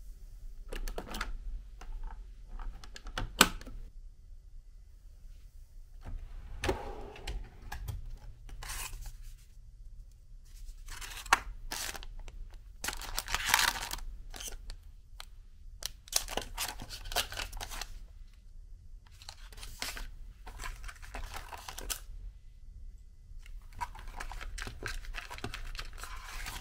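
Paper packaging of hotel toiletries rustling and crinkling in short, irregular bursts as the items are handled, with a sharp click about three seconds in.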